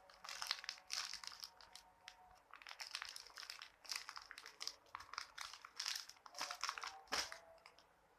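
Irregular crinkling and rustling of packaging as squishy toys are handled, with a sharper snap about seven seconds in.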